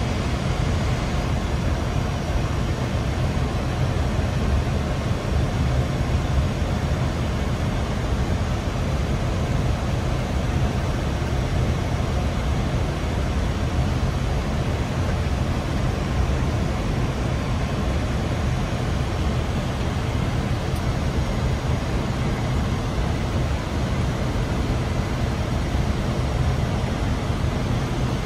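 Steady flight-deck noise inside an Airbus A320 cockpit in flight on descent: an unbroken rush of air with a low rumble underneath, unchanging throughout.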